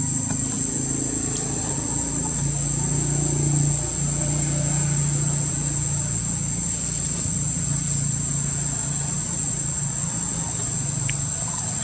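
A constant high insect whine over a steady low hum.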